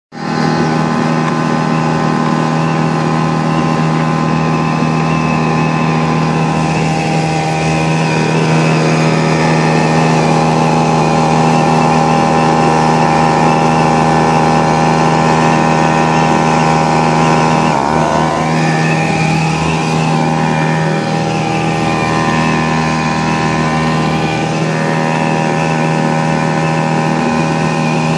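Hangkai 3.5 hp outboard motor running steadily under way, pushing a pedal boat, with a brief dip and waver in engine pitch about eighteen seconds in.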